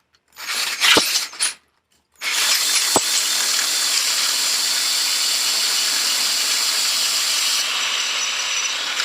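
Power tool grinding metal to take off a last small amount of material. It runs in a short burst, then steadily for about seven seconds and stops just after the end.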